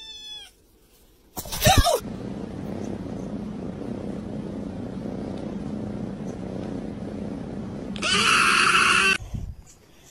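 Domestic cats: a kitten's long meow trails off in the first half second, and a short loud cat call comes about a second and a half in. A steady low rumble follows, then a loud harsh noise lasting about a second near the end.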